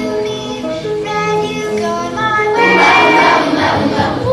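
Children singing a song with musical accompaniment, the melody moving in held, stepped notes. About two and a half seconds in, a noisy wash rises under a long held note for over a second.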